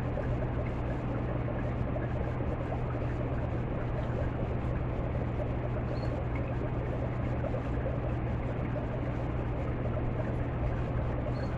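Aquarium pump running steadily: a constant low hum under an even hiss.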